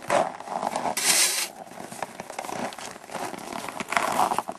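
Crunching and scraping in packed snow in irregular bursts, the loudest a hissing scrape about a second in.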